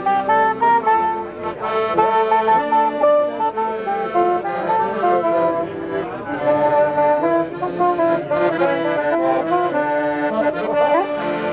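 A clarinet and a piano accordion playing a tune together.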